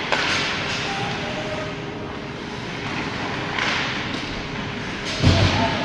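Ice hockey play in an arena: a steady background of rink noise with two short scraping hisses, about three and a half and five seconds in, the second with a heavy thump.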